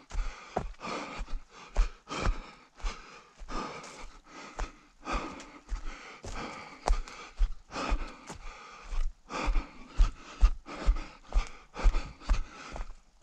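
A runner breathing hard, panting over footfalls that thud about twice a second while running through terrain.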